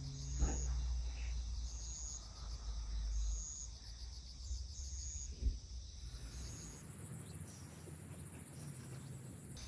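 Insects chirping: a steady high trill with a brighter chirp repeating about once a second, over a low rumble that fades out about halfway through.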